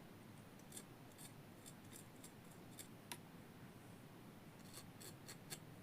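Faint, light scraping and ticking of a small tool cleaning the burnt carbon off the ends of thin enamelled speaker wires, in short scattered strokes.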